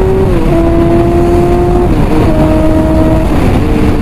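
Car engine accelerating hard through the gears: the engine note climbs slowly, then drops at each upshift, three times.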